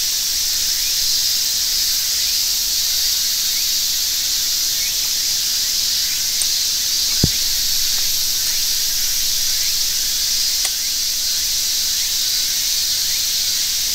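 Steady high-pitched insect chorus from the surrounding summer woods, with a single sharp knock about seven seconds in.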